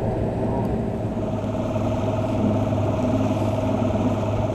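An engine running steadily with a constant hum.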